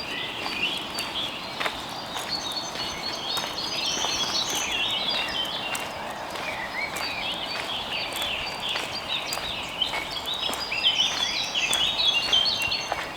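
Several forest birds singing together in a dense chorus of quick chirps and trills, busiest about four seconds in and again near the end, over the crunch of footsteps on dry leaves and twigs.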